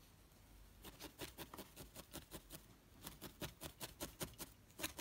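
A felting needle repeatedly stabbing through carded wool into a foam pad, a quick even run of short pokes at about four or five a second that starts about a second in.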